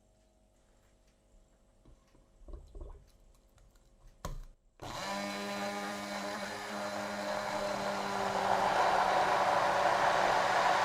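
A few light knocks and a click, then an electric blender switches on about five seconds in, its motor running at a steady pitch and getting louder and noisier a few seconds later.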